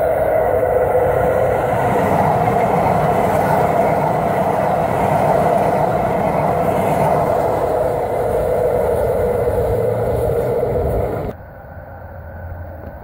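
Metro Blue Line light-rail train passing close by at speed: a loud, steady rush and rumble of steel wheels on rail. It cuts off suddenly about eleven seconds in, leaving quieter outdoor ambience.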